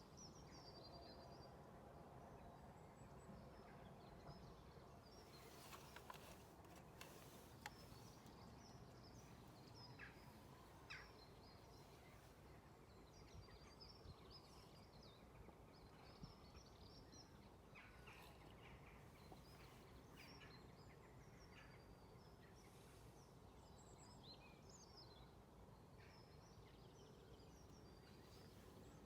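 Faint dawn birdsong: scattered short high chirps and trills from several birds over a steady low background rumble, with a few soft clicks.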